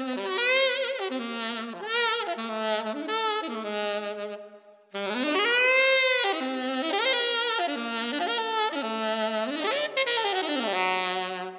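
A lone saxophone playing a wailing melodic line, with sliding bends and vibrato on held notes. It breaks off briefly a little over four seconds in, then comes back on a long wavering note.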